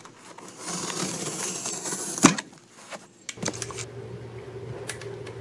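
Cardboard side wall being trimmed by hand: a rasping scrape lasting about a second and a half, ending in a sharp snap. After a short pause comes a steady low hum with a couple of light clicks.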